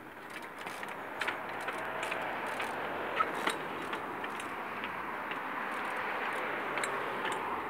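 Steady road-traffic noise from passing cars, with scattered light clicks and knocks from a trials bike hopping on its rear wheel along a stone wall.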